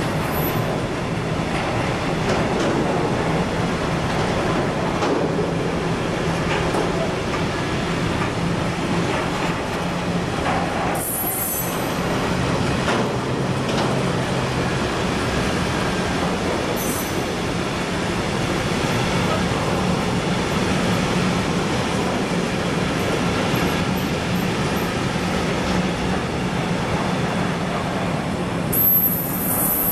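Loaded gas tank wagons of a freight train rolling past, with a steady rumble of wheels on rail. Brief high wheel squeals come three times: about 11 seconds in, about 17 seconds in, and near the end.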